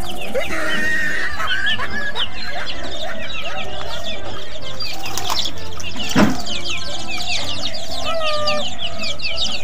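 Chickens clucking over a dense, continuous chorus of short high chirps, with one sharp knock about six seconds in.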